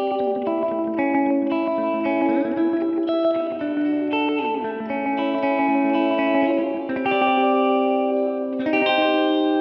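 Electric guitar, a Fender Jazzmaster Modern Player, played through an Ibanez DE-7 delay pedal and a simulated Fender Princeton Reverb amp. It plays a melodic line of single notes that overlap and linger as the delay repeats them. A chord is struck near the end.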